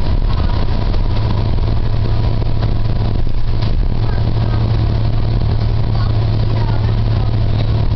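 Cummins ISL9 diesel engine of a New Flyer XD40 Xcelsior transit bus running with a steady low drone, heard from inside the passenger cabin over general road and cabin noise.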